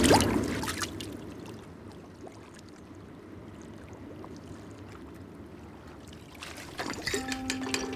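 A small wooden boat hits the sea in a big splash, with spray spattering down and fading over about a second. Soft lapping water follows, and near the end come a run of knocks and clicks.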